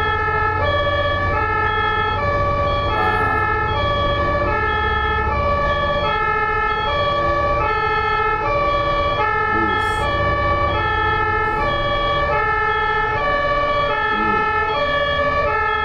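German ambulance two-tone siren (Martinshorn) alternating steadily between a low and a high note, switching about every two-thirds of a second, over a low rumble of road traffic.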